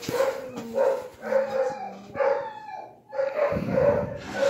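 Dogs barking over and over, a string of short barks one after another with hardly a pause.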